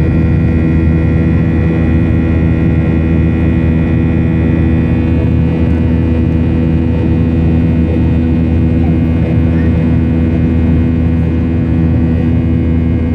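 Boeing 737 jet engines heard inside the cabin during the climb after takeoff: a loud, steady drone with a few steady hum tones over a deep rumble.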